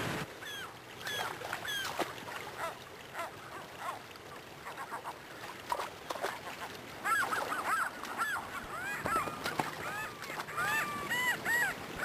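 A flock of gulls calling with short, arched squealing cries over the steady rush of a shallow river. The calls are scattered at first and crowd together into an overlapping chorus about halfway through.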